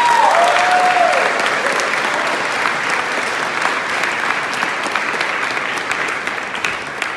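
An audience clapping steadily after a speaker is introduced, dense and loud, with two brief high-pitched calls rising over it near the start.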